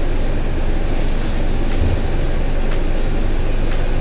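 Steady low mechanical rumble, with faint sharp ticks about once a second.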